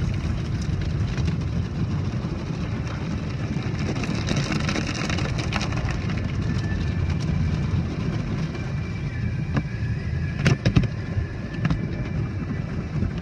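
Automatic car wash heard from inside the car: water spray and spinning cloth brushes swishing and drumming over the windshield and body in a steady rumble, with a few sharp knocks about ten and a half seconds in.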